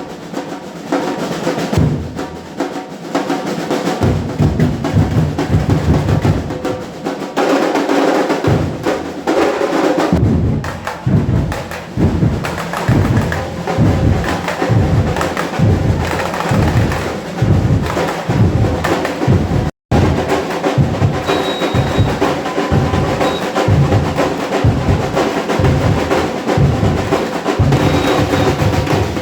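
Batucada drum group playing: snare rolls and higher drums over deep bass drums. From about a third of the way in, the bass drums beat a steady pulse of about two strokes a second. The sound drops out for an instant about two-thirds of the way through.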